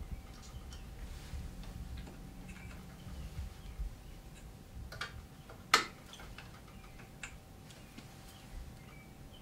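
Light clicks and taps of an LED ring light being fitted onto the underside of a stereo microscope head, over a faint steady hum. One sharp click, a little past halfway, is the loudest.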